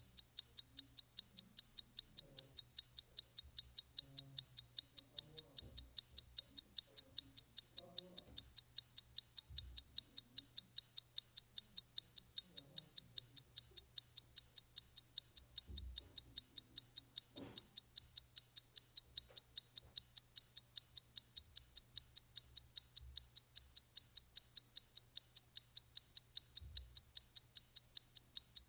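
Clock ticking in a rapid, even rhythm, with faint scattered rustles and bumps beneath it.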